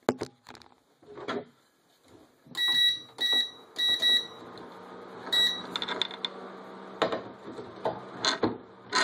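Induction cooktop's control panel beeping four times as it is switched on, each beep short and clear. After the last beep the cooktop starts up with a steady hum, amid a few knocks and clicks of handling.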